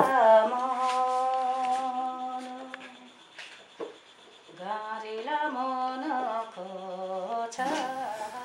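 Background music of a wordless hummed vocal melody: long held notes that fade out about three seconds in, then return with notes stepping up and down.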